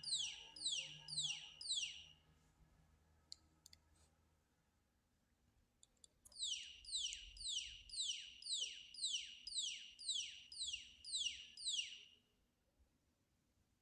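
Electronic alarm tone from a Micro:bit gas leak alarm: a quick series of high falling chirps, about two a second. It stops about two seconds in and starts again about six seconds in for another six seconds, the alarm signalling that the MQ-4 sensor detects gas.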